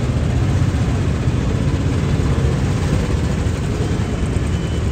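Steady low rumble of engines in slow, congested road traffic.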